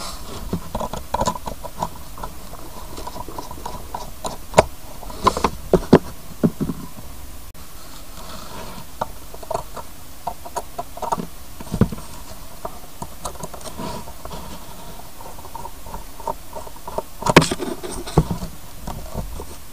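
Screwdriver working the case screws out of an Alcor exhaust gas temperature gauge: scattered small clicks, ticks and scrapes, with a few louder knocks.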